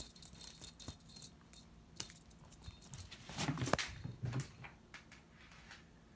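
A cat playing fetch with a thrown cat-teaser toy: scattered light clicks and rattles, then a cluster of soft thumps and clatter about three and a half to four and a half seconds in.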